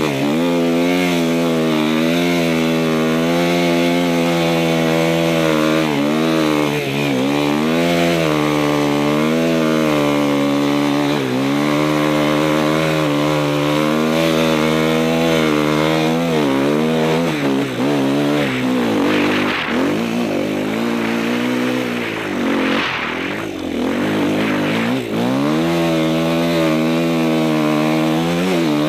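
Enduro dirt bike engine revving up and down continuously as the bike is ridden through snow, its pitch rising and falling every second or two. About two-thirds of the way through it turns rougher, with several deep drops in revs before it steadies again.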